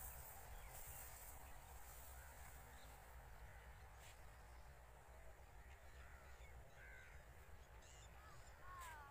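Faint open-field ambience: a steady low rumble with a few scattered bird calls, short chirps and downward-sliding notes, gathering near the end.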